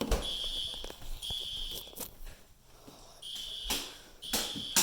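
Fire alarm horns sounding a high-pitched pulsed tone in groups of three beeps separated by a longer pause, the temporal-three evacuation pattern. Several sharp knocks are heard alongside, the loudest near the end.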